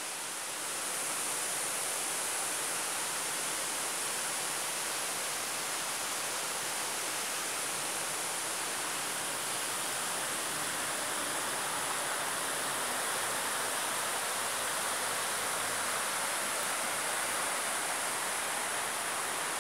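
Steady rush of a rocky forest river: an even wash of water noise that holds level throughout.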